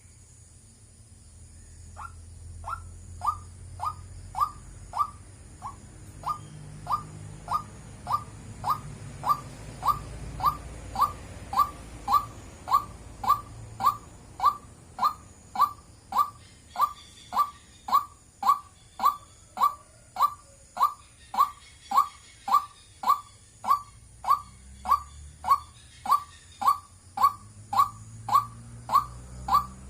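White-breasted waterhen calling: a short falling note repeated steadily, nearly twice a second. It starts about two seconds in and grows louder.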